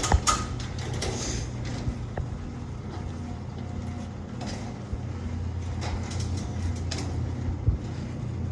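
Genie Pro Max chain-drive garage door opener raising a sectional garage door: a steady motor hum with a click at the start. It runs very smooth.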